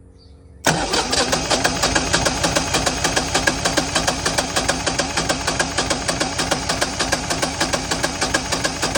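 Generac standby generator's starter cranking the engine on a second start attempt: it cuts in suddenly about a second in after a faint hum, then keeps chugging with fast, even strokes without the engine catching. The unit cranks but will not start on propane.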